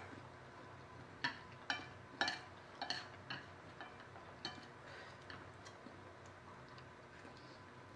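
Eating fried noodles with chopsticks from a plate: a scatter of small, sharp clicks, about eight of them between one and four and a half seconds in, over faint room tone.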